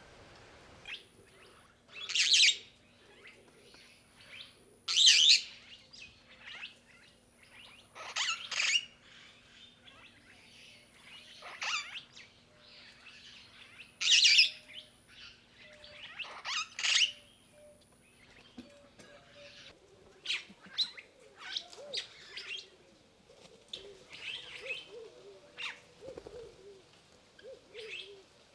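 Birds calling: about six loud, sharp high calls come a few seconds apart, then many quieter, busier calls follow in the second half. A thin, high, steady whine comes and goes behind them.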